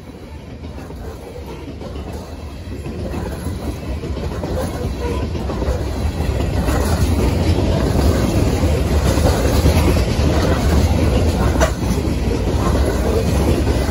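Coal hopper cars of a freight train rolling past, their wheels rumbling and clattering over the rails. The sound grows louder over the first half and then holds steady.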